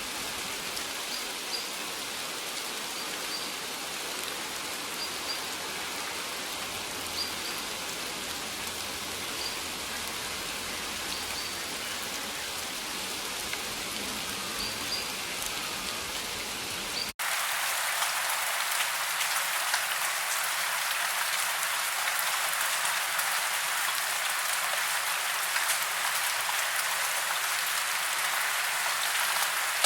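Steady rain falling, with faint high chirps repeating every second or two. About seventeen seconds in, it cuts abruptly to a louder, denser, hissier heavy-rain recording.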